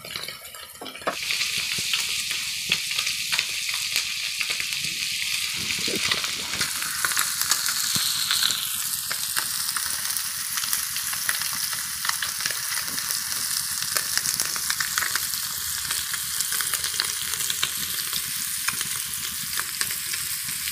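Oil sizzling and crackling steadily around masala-coated whole fish shallow-frying in a flat pan, with many fine spits and pops. It gets louder about a second in.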